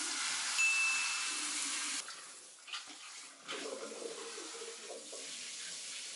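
Kitchen tap running into the sink: a steady rush of water, loudest for the first two seconds, then lower and more uneven as the stream's fall changes.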